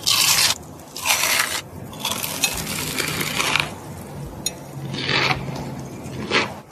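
Crispy fried chicken being bitten and chewed: a series of loud crackling crunches, about one a second, with a longer run of crunching in the middle.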